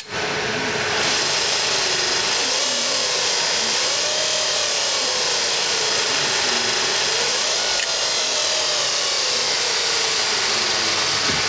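Electric motor driven by a high-voltage motor controller, revved up and down: its whine rises and falls a few times over a steady hiss, then winds down near the end.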